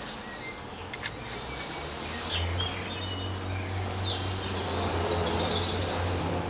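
Birds chirping and whistling, with a single sharp click about a second in and a low steady hum starting about two seconds in.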